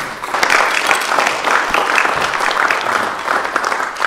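Audience applauding: a dense patter of many hands clapping that swells in the first half second, holds steady, and begins to die away near the end.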